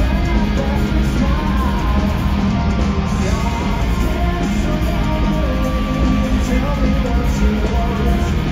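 Live hard rock band playing loud: electric guitar, bass and drums, with a man singing lead.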